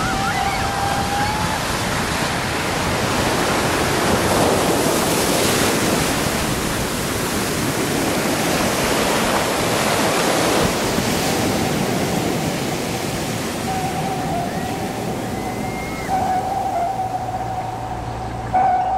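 Ocean surf: waves breaking and washing up over the sand in a steady rush that swells and falls. A thin, steady high tone sounds faintly at the start and again through the last several seconds, and a low hum joins near the end.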